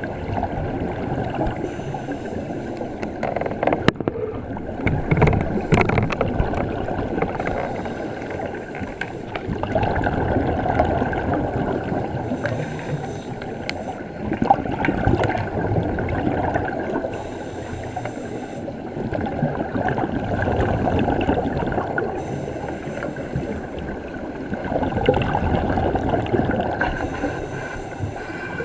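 Scuba divers' exhaled bubbles heard underwater: a rushing, gurgling noise that swells and fades every few seconds with each breath, with a few short knocks.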